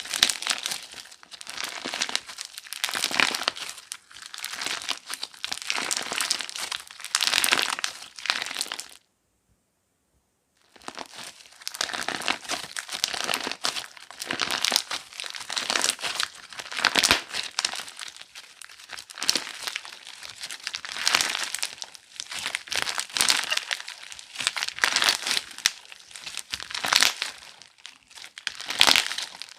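Hands squeezing and pressing crunchy slime, giving dense crinkly crackling in repeated surges. The sound cuts out for about two seconds around nine seconds in, then resumes.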